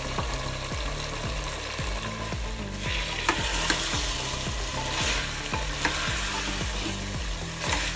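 Cauliflower florets stirred into mutton masala gravy sizzling in a pressure cooker pot. A spatula scrapes and knocks against the metal several times, and the sizzle grows louder about three seconds in as the florets are turned through the hot gravy.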